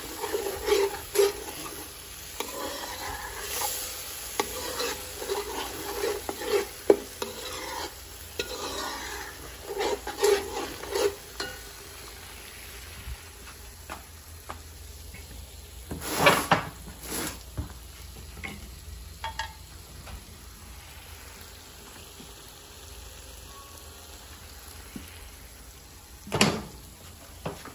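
A thick masala paste of spices, onion and garlic sizzling as it fries in a large metal pot, stirred and scraped by hand. Quick stirring strokes fill roughly the first dozen seconds; after that the sizzle goes on more quietly, broken by two louder scrapes or knocks, about sixteen seconds in and near the end.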